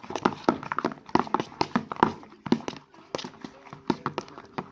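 Slime being mixed and worked in a bowl: a fast, irregular run of sharp, wet clicks and pops.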